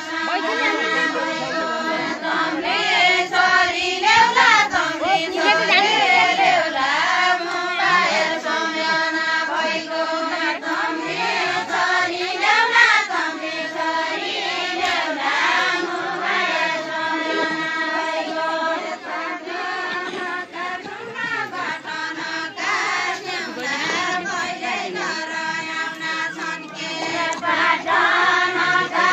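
A group of women singing a Nepali deuda folk song together, many voices chanting the same repeating melody in chorus.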